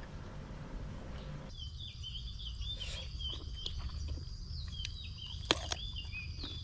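Outdoor ambience: from about a second and a half in, a steady high insect-like drone with birds chirping over it in short repeated falling notes, over a low rumble. A single sharp click comes near the end.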